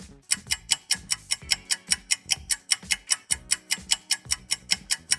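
Clock-ticking sound effect, a quick even tick about five times a second, used as a time-skip transition, with faint background music underneath.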